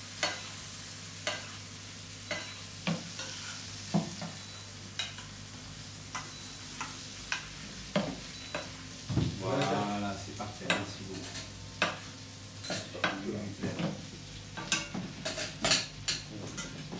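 Zander fillet frying in butter going noisette in a stainless steel pan, sizzling steadily while it is basted, with the spoon clicking against the pan again and again. A brief pitched sound about nine seconds in.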